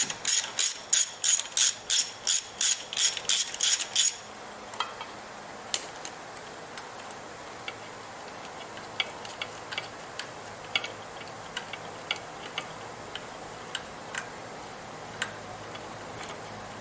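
Ratchet wrench clicking in quick, even bursts, about three a second, as a 10 mm bolt is backed out. The ratcheting stops about four seconds in, leaving a few scattered small clicks and taps of metal parts being handled.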